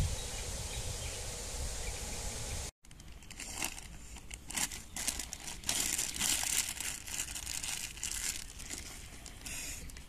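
A steady outdoor hiss, then an abrupt cut. After the cut come irregular crinkling rustles close to the microphone, in uneven bursts.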